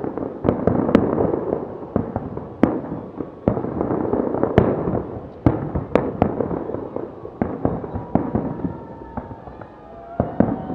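Fireworks display going off: a continuous crackling rumble of bursts with sharp loud bangs about once a second.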